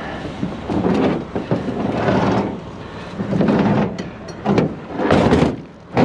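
Steel wire-rope winch cables being dragged and piled into a pickup's metal bed: a run of scraping, rattling bursts with a few sharp clanks.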